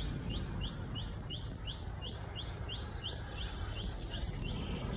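A bird repeating one short, high note that falls slightly in pitch, about three times a second, over a low steady rumble.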